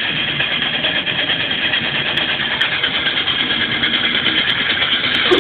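Steady noise of a car driving, heard from inside the cabin: engine and road noise.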